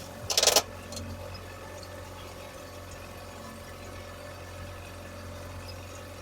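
Steady low drone of a trolling boat's motor, with a brief loud burst of rapid clicking about half a second in.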